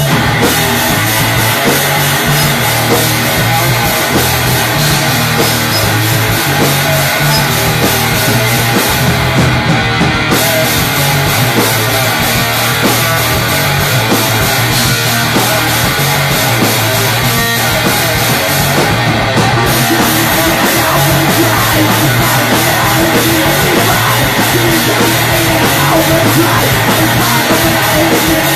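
Punk rock band playing live: fast, loud rock music with a drum kit, continuing without a break.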